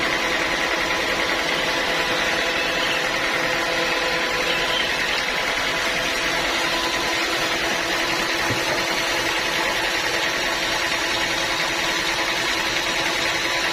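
Sawmill machinery running steadily with a constant hum and whine, no change in pitch or level.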